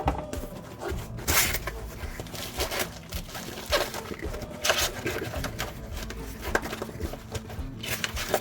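Cardboard shipping box being cut open and unpacked by hand: irregular scraping, tearing and rustling of tape, cardboard and packing material.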